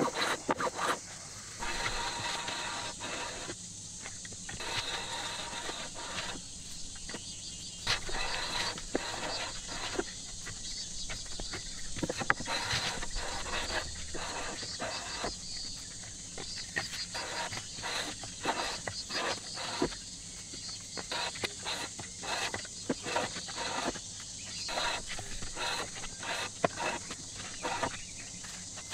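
Japanese hand plane shaving the top of a ginkgo slab: repeated strokes, each a hissing swish of a second or two with small knocks as the plane is set down and drawn back. A steady high-pitched drone runs underneath.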